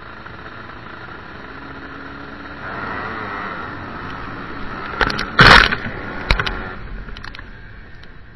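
A pack of sidecarcross outfits' engines running at the start and then swelling nearly three seconds in as the outfits launch and accelerate away together. Around five seconds in, a few loud knocks hit the onboard camera, the loudest sound, with a smaller one about a second later.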